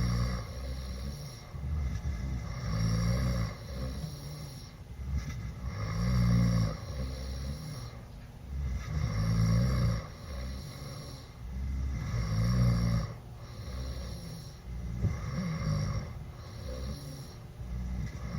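A teenage boy snoring loudly with his mouth open after drinking, one heavy snore about every three seconds.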